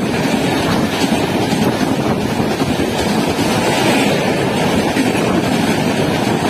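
Indian Railways express passenger coaches passing at speed close by: a steady, loud rumble of wheels on the rails with the rush of air from the passing train.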